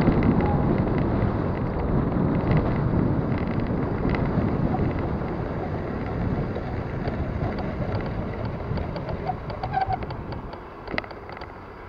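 Wind rushing over the microphone and the rolling rumble of a bicycle ridden along a city bike lane, with scattered light clicks and rattles from its worn drivetrain: a shot bottom bracket, a worn rear sprocket and chain, which make it sound like a bucket of bolts. The rushing fades and drops sharply near the end as the bike slows, with one sharper click just after.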